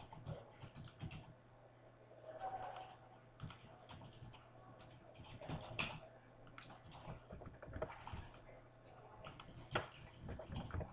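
Computer keyboard keys and mouse buttons clicking, scattered irregularly a few at a time, over a faint steady low hum.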